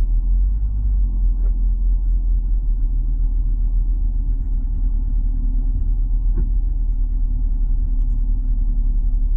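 Car driving slowly on a snow-covered road, heard from inside the cabin: a steady low rumble of engine and tyres with a faint steady hum.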